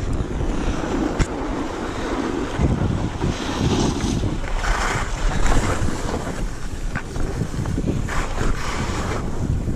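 Wind buffeting the microphone of a skier heading downhill, with skis scraping and hissing over packed snow in surges as they turn.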